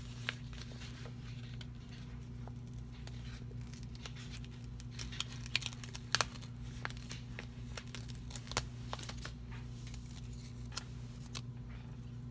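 Paper and washi tape being handled at a desk: scattered crinkles and small clicks, with tape peeled and torn from the roll. A steady low hum runs underneath.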